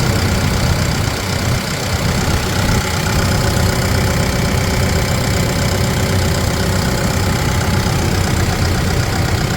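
Case 580N EP backhoe's diesel engine idling steadily.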